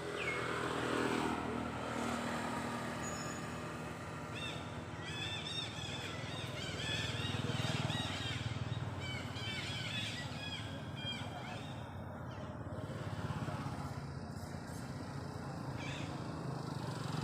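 A steady engine hum, with a falling tone in the first two seconds and many short high chirping calls from about four to ten seconds in.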